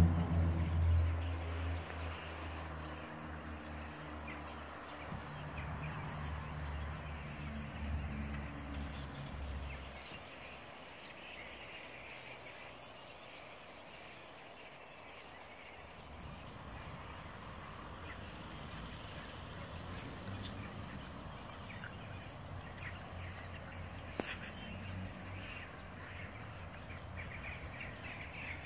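Dense chatter of many starlings, countless short chirps overlapping in a continuous chorus as the flock settles to roost. A vehicle's low engine hum fades away over the first ten seconds, and there is one sharp click near the end.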